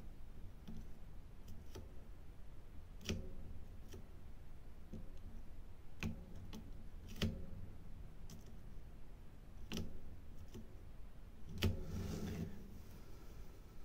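Faint, irregular clicks and taps of a diamond painting drill pen picking drills up from a plastic tray and pressing them onto the canvas, a second or more apart, with a brief rustle near the end.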